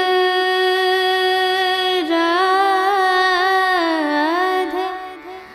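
Background music: a held melody line that slides between notes, joined by a second line about two seconds in, fading out near the end.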